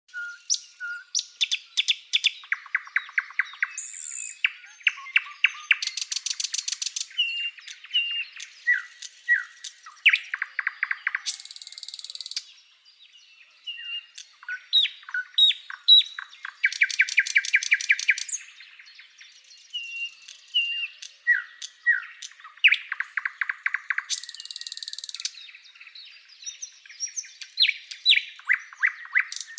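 A songbird singing: a varied, busy song of short chirps and down-slurred whistles broken by rapid trills and a few high buzzy bursts, with similar phrases repeating.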